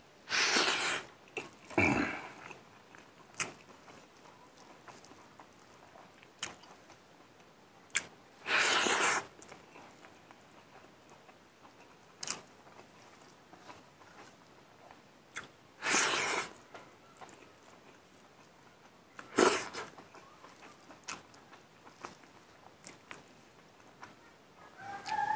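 Close-miked eating of rice and mustard greens by hand: soft chewing and mouth clicks, broken by a few short, louder hissing bursts such as slurps or sniffs.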